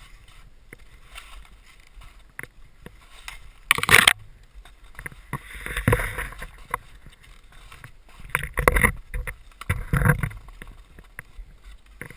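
Skis turning through deep powder snow: four swishes of spraying snow, the loudest about four seconds in and the others about six, nine and ten seconds in.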